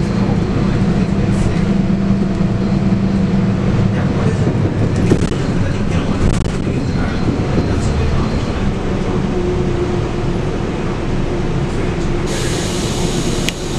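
Cabin sound of a Scania K280UB bus on the move, its 9.3-litre five-cylinder Scania DC9 diesel running with road noise. The engine's steady tone drops away about four seconds in, and a brighter hiss sets in suddenly near the end.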